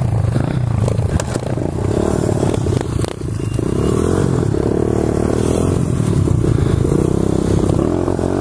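Pit bike engine running and revving as the bike pulls away and rides, its pitch rising and falling with the throttle. A few sharp clicks in the first three seconds.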